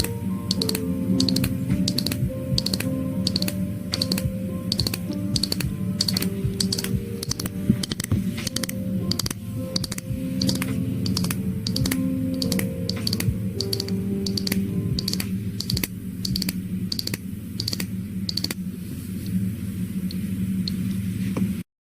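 Background music of soft held notes with a steady clicking beat, about three clicks a second, which cuts off suddenly near the end.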